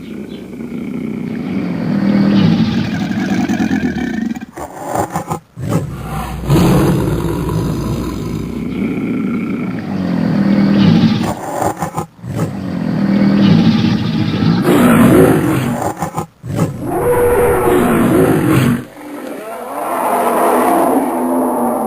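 Dragon roars made from layered and edited animal recordings such as big cats, bears and alligators: a run of about five long, deep growling roars, each ending in an abrupt cut before the next begins.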